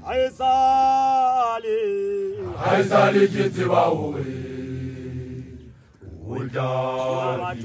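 Young Basotho initiation graduates chanting: one voice holds a long high call that slides down, then many voices join in a louder chant about three seconds in, and a new long call begins near the end.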